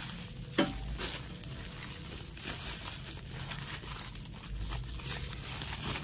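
Plastic bubble wrap crinkling and crackling as it is handled and pulled around a boxed fan, with a sharp click about half a second in.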